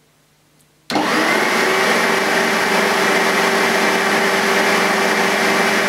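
Sebo automatic X1 upright vacuum cleaner switched on about a second in: the motor comes up to speed at once and runs steadily, a rush of air with a steady whine over it, sounding okay.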